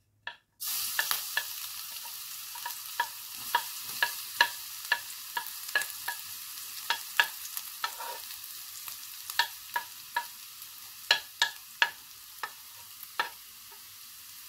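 Minced garlic sizzling in very hot oil in a wok. The sizzle starts suddenly about half a second in and slowly dies down, while a wooden spoon stirring it knocks and scrapes against the pan many times at an irregular pace.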